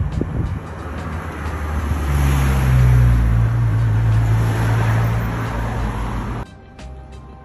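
Motor vehicle passing close by on the road, its engine and tyre noise building to a loud peak about three seconds in, then cutting off abruptly near the end.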